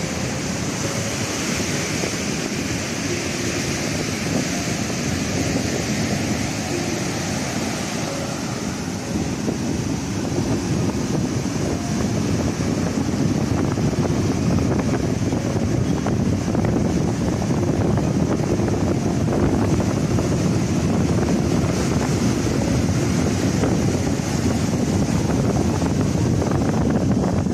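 Ocean surf breaking and washing up a sandy beach, with wind buffeting the microphone. It grows somewhat louder about ten seconds in.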